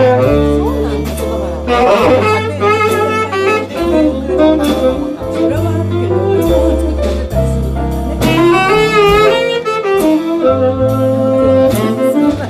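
Small jazz combo playing live: a saxophone carries a slow melody with vibrato over guitar chords and upright bass notes.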